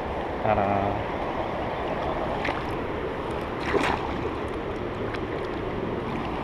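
River water rushing over rocks in shallow rapids as a steady wash. A brief low pitched sound comes about half a second in, and two short sharp sounds at about two and a half and four seconds in.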